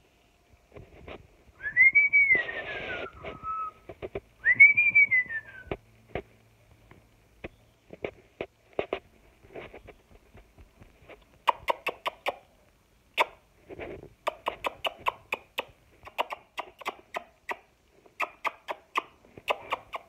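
Two whistles in the first few seconds, each rising then falling in pitch. Then a long run of quick, soft clicks and short chirps from a cockatiel nibbling at a fingertip, getting busier in the second half.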